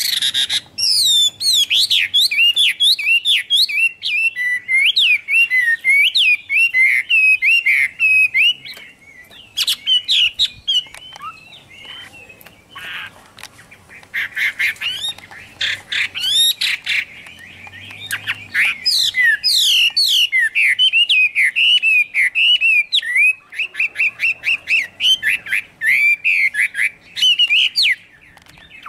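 Caged Chinese hwamei singing a loud, varied song of rapid whistled phrases, quick rising and falling slurs run together, broken by a few short pauses.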